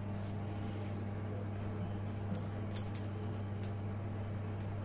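A steady low hum with a few faint clicks and taps of a monitor's video-interface circuit board and its cable connectors being handled. The clicks are spread over the second half.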